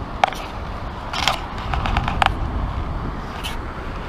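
Wind rumbling steadily on the microphone, broken by a handful of short clicks and scrapes as a metal detector and sand scoop are handled over wet sand.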